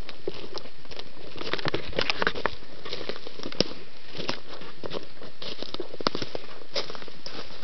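Footsteps crunching on dry leaves and twigs on a forest path: irregular crackles and snaps over a steady background hiss.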